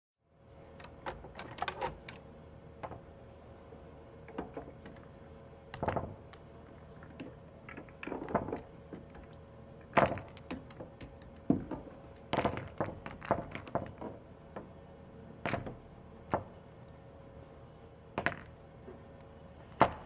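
Pool balls rolling on a table and clacking into one another: sharp knocks every second or so, some in quick clusters, with the loudest strikes about ten seconds in and near the end.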